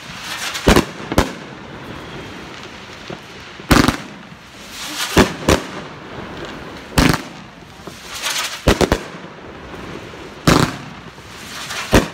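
A 500-gram consumer fan cake firing: about ten sharp bangs, one every second or so and sometimes in quick pairs, with a rough crackling hiss between them.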